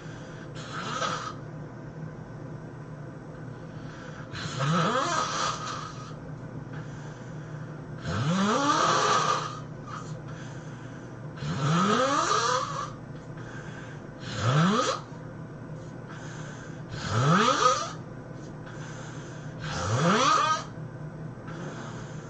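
A person snoring loudly, seven snores about three seconds apart, the first one weaker. The pitch of each snore rises as it goes.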